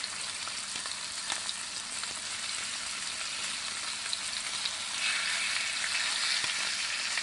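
Chuck roast searing in butter in a hot braising pan: a steady sizzle of hot fat. It grows louder about five seconds in as halved sweet peppers go into the pan beside the meat.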